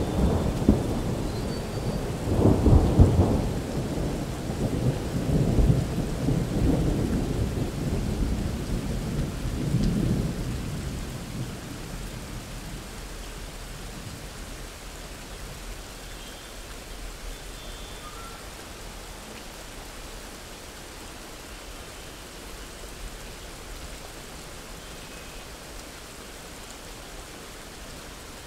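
Thunder rumbling several times, loudest about three seconds in, with steady rain that carries on after the rumbles die away.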